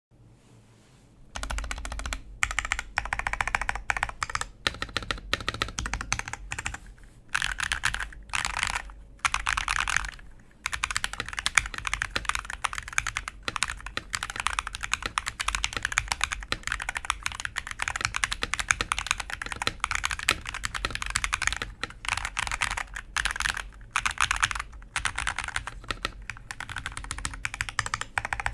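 Typing on a Budget68x mechanical keyboard with KTT Milk Yellow linear switches and pudding keycaps: fast keystrokes in long runs, broken by brief pauses. The typing starts about a second and a half in.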